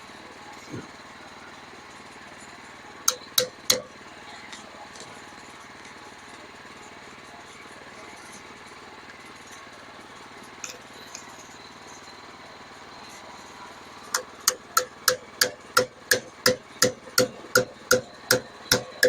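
Hammer blows on metal: three quick strikes, then after a long pause a steady run of about fourteen blows, roughly three a second, each ringing briefly. The blows are knocking at a piece of steel embedded in a sawlog.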